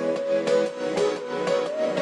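Instrumental background music with a steady light beat.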